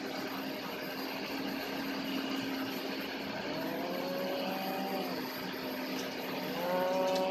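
Rice combine harvester's engine running steadily, revved up twice and held for a second or two each time, as it tries to drive out of the deep paddy mud it is bogged in.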